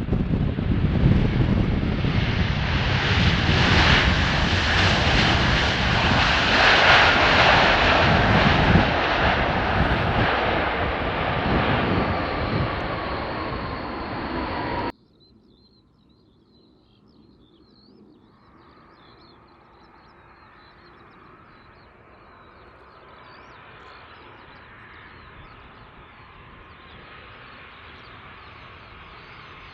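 Large jet airliner passing close overhead on landing approach, its engines loud with a slowly falling whine; the sound cuts off abruptly about halfway through. Then a much fainter jet, the next arrival, builds slowly.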